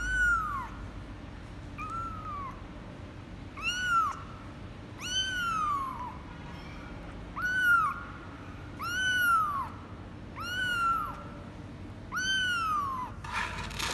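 A 24-day-old kitten meowing repeatedly: about eight short, high-pitched mews, each rising then falling in pitch, spaced a second or two apart.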